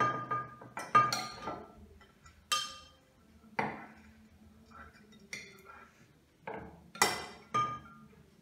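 Metal spoons clinking against glass mixing dishes as glue and borax solution are stirred into slime: a series of sharp, briefly ringing clinks at uneven intervals.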